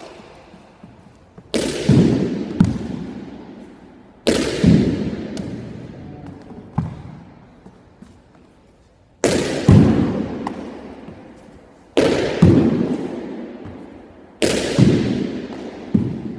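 A pitching-machine ball slamming against the wall of an enclosed court five times, each bang ringing out in a long echo, with lighter knocks of the ball coming back in between.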